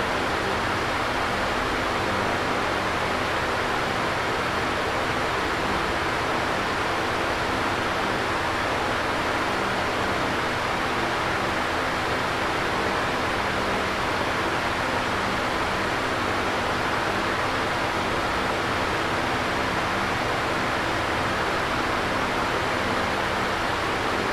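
Electric fan running steadily: an even whooshing hiss with a faint low hum beneath, unchanging throughout.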